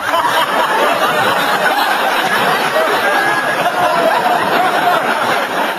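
Indistinct background chatter of many voices, a steady murmur with no single speaker standing out.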